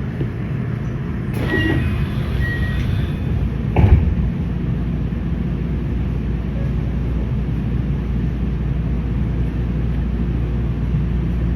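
Kintetsu 8A series electric train running, heard from inside the car: a steady low rumble, with a brief high squeal about a second and a half in and a single loud thump about four seconds in.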